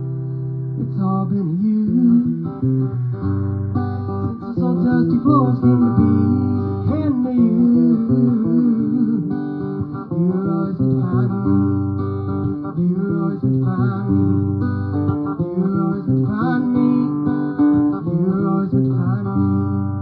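A guitar playing an instrumental passage of a song live, with chords and notes ringing on.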